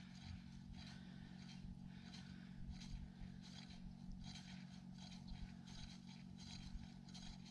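Faint steady low hum with soft, intermittent rustling as fishing line is paid out by hand into an ice hole, lowering a clip-on lead weight to find the bottom.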